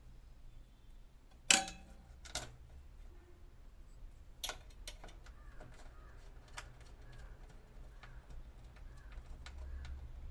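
Clicks and knocks from handling the parts and casing of an LG home theater unit during reassembly. There is one sharp loud knock about one and a half seconds in and two lighter ones soon after, then a run of faint, irregular ticks over a steady low hum.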